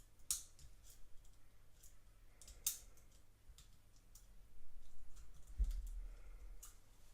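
Lock-pick wires and a tension tool working inside a Silverline padlock: irregular small sharp metal clicks, the loudest about two and a half seconds in, with soft handling bumps of the lock later on.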